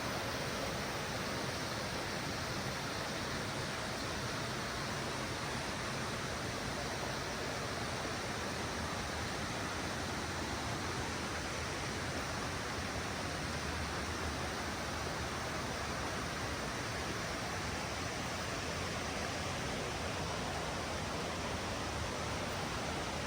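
Rushing water: a steady, unbroken noise with no other sounds standing out.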